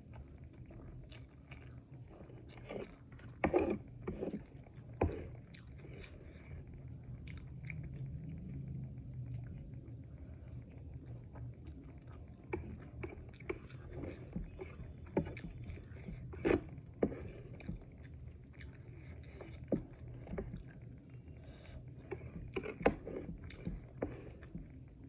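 A person eating close to the microphone: chewing and mouth smacks of noodles and fried momo, with scattered sharp clicks.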